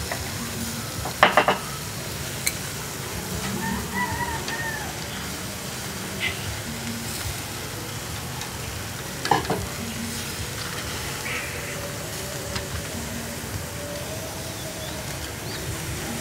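Stuffed pig intestine sausages sizzling over a charcoal grill, with metal tongs clicking against the grate, loudest about a second in and again about nine seconds in.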